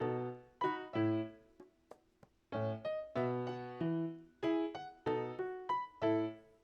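Background piano music, a light tune of separate notes with a short pause about two seconds in.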